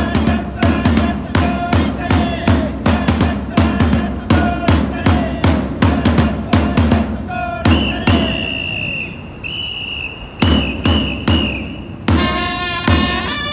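Japanese baseball cheering-squad trumpets playing a player's fight song in unison over a steady beat on a large cheering drum. About eight seconds in, the trumpets move up to high held notes.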